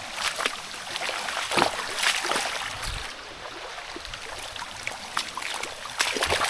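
Waterfall and spring water rushing steadily, with scattered short sharp sounds over it, several of them about two seconds in.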